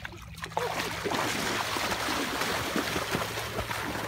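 Loud splashing and churning of shallow, muddy pond water as children wade in and drive a woven basket fish trap down into it, starting about half a second in.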